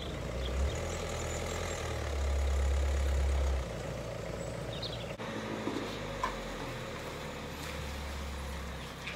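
Ferguson TEF-20's diesel engine running at a steady idle, its low rumble growing louder for a stretch about two seconds in.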